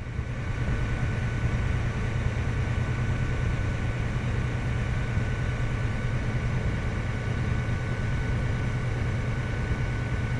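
Farm machine's diesel engine running steadily, heard from inside the cab as a constant low drone with a faint thin steady whine above it.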